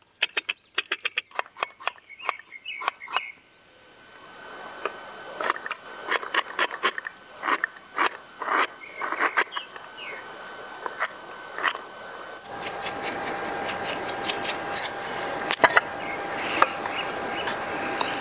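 Knife chopping on a wooden cutting board: sharp knocks of the blade against the board, quick at first, then slower and uneven as red onion is chopped. About twelve seconds in, a steadier background hiss with a few faint steady tones comes in, with only a few more knocks.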